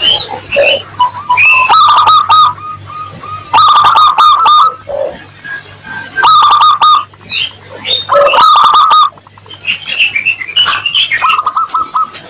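Zebra dove (perkutut) singing its cooing song: loud phrases of rapid staccato coo notes, repeated about every two seconds, with short higher chirps between the phrases.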